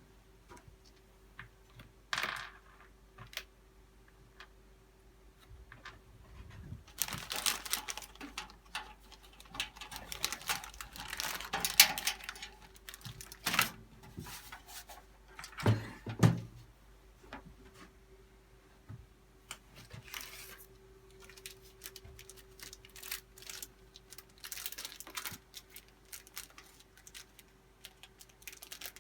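Computer parts and packaging being handled during a PC build: scattered clicks, rattles and rustling, busiest for several seconds in the middle, with two low knocks about halfway through, over a faint steady hum.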